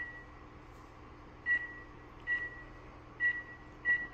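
Dahua face-recognition access terminal's touchscreen giving a short, single-pitched beep at each key press while the administrator password is entered, about five beeps spaced irregularly roughly a second apart.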